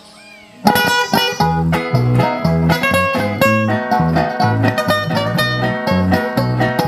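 Instrumental song intro on plucked guitars over a bass line that steps between low notes on a steady beat. It starts abruptly under a second in.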